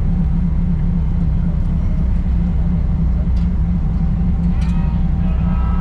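Ferry's engines running under way, a steady low hum heard from the open stern deck.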